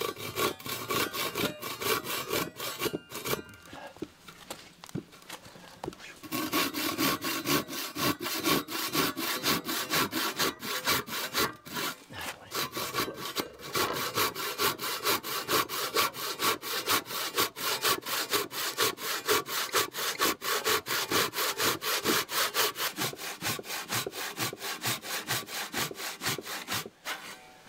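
Freshly resharpened Japanese ryoba pull saw cutting a wooden board by hand. A few spaced strokes start the kerf, then from about six seconds in comes a steady run of fast pull strokes that stops just before the end. This is a test cut of the saw's newly sharpened and reset teeth.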